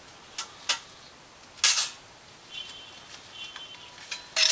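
Light metallic clicks, then a short scraping rustle about one and a half seconds in and faint high squeaks, as a metal head gasket is handled and slid down over the cylinder studs and dowels of a Honda Foreman 500 engine. A sharper scrape comes near the end.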